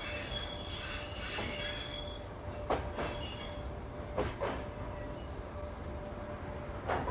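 Train wheels on rails: a steady high squeal fades out over the first few seconds, leaving a few sharp clacks of wheels over rail joints, spaced a second or more apart, as the sound dies away.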